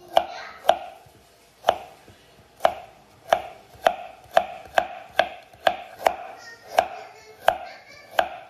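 Knife cutting carrots on a cutting board: about fourteen sharp, separate chops, a little under two a second.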